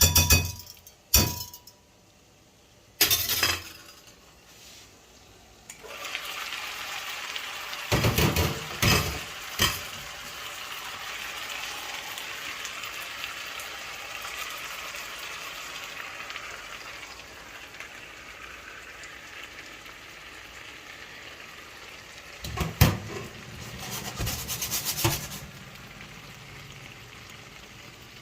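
Kitchen utensils and dishes clattering and clinking, then a pan starts a steady sizzle of frying that slowly dies down. Stirring knocks and clinks come twice during the sizzle: a cluster a few seconds after it starts, and another near the end.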